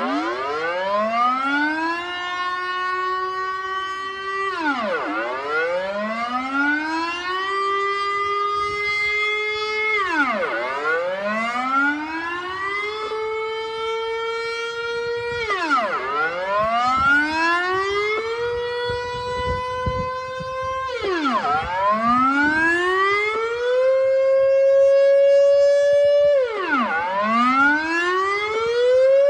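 Dutch civil-defence air-raid siren sounding its monthly test signal: a wailing tone that rises over about two seconds, holds, then drops sharply, repeating about every five and a half seconds. The held pitch creeps a little higher with each cycle.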